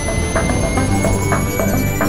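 Electronic background music with a steady beat and a high tone that rises slowly throughout.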